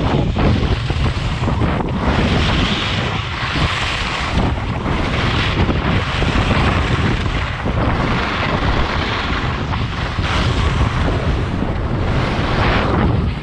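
Wind buffeting the microphone at downhill riding speed as a steady loud rumble, over the hiss and scrape of edges carving hard-packed snow, which swells and fades every second or two with the turns.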